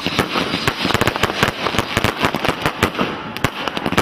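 Fireworks going off in a rapid, irregular barrage of sharp cracks and bangs, many each second, over a continuous crackle.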